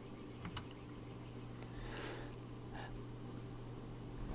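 Quiet room tone on a voice-recording microphone: a steady low electrical hum, a few faint clicks, and a soft breath about two seconds in.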